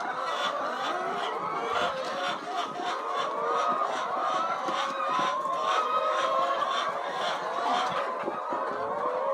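A flock of chickens calling and clucking, many voices overlapping without a break.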